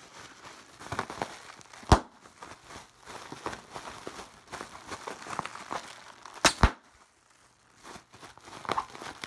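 Plastic bubble wrap crinkling as it is squeezed and twisted in the hands, with sharp pops of bubbles bursting: one about two seconds in and two in quick succession around six and a half seconds.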